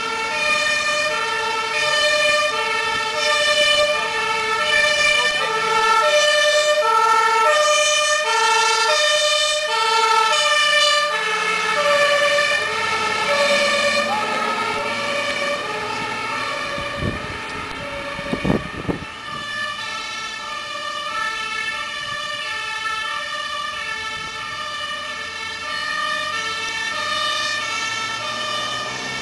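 Dutch fire service two-tone siren, alternating high and low about every half second as the vehicles run on an urgent call. It is loudest in the first third and fainter afterwards, with a few sharp knocks about two-thirds of the way through.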